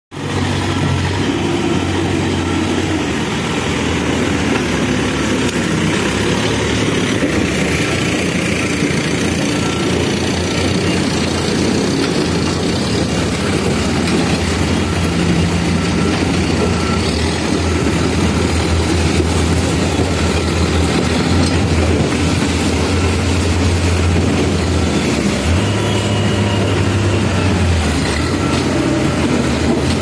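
Backhoe loader's diesel engine running steadily with a low, continuous hum while the machine works mud with its front loader bucket.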